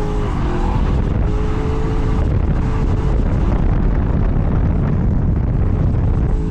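2007 Ford Mustang's engine running hard on track, with loud rumbling wind buffeting on the onboard camera's microphone and a faint steady engine tone in the first few seconds.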